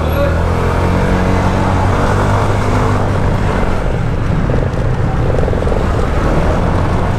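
Honda SH125i scooter's single-cylinder four-stroke engine running steadily while riding, with road and wind noise over it.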